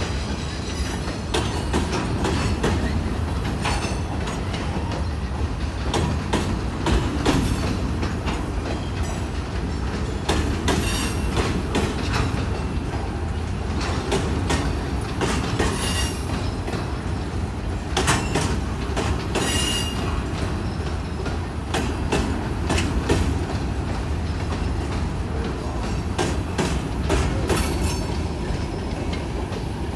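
Freight cars of a long mixed train, covered hoppers and boxcars, rolling past: a steady low rumble of steel wheels on rail with frequent clicks over the rail joints, and a couple of brief wheel squeals about halfway through.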